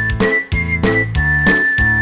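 Upbeat children's background music: a high whistling melody over a steady beat, settling into one long held note from about halfway through.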